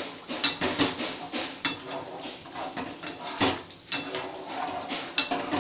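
Steel spatula scraping and knocking against a steel kadai while fried rice is stirred: irregular metallic clinks and scrapes, with a handful of sharper knocks that ring briefly.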